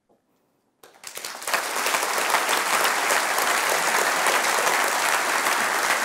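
Audience applause that starts about a second in and quickly builds to a steady, full clapping.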